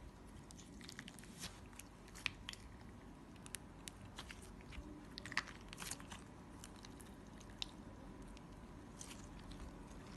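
Clear slime being squeezed and worked by hand, giving scattered faint crackles and little pops, with a few sharper clicks.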